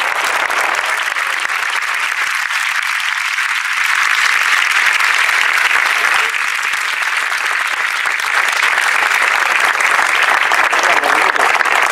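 A crowd applauding steadily, many people clapping at once.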